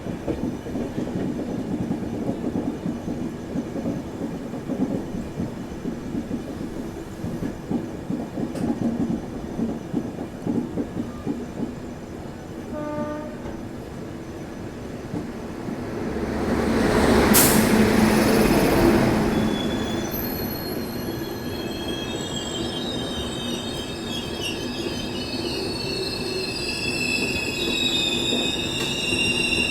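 Passenger train running past on Indian Railways track: rapid rhythmic clatter of wheels over the rails, a loud rush about two-thirds in as it passes close, then high-pitched squealing of the wheels on the rails.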